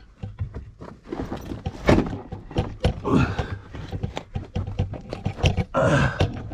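A person crawling through a tight lava-rock tube: body and gear scraping and knocking on the rough rock, with three effortful grunts, about two, three and six seconds in.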